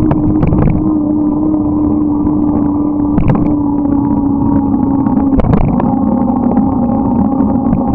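A moving bike recorded on board: a loud, steady drone with a held pitch over a low rumble, with a few sharp knocks. The pitch dips slightly about five and a half seconds in and rises again near the end.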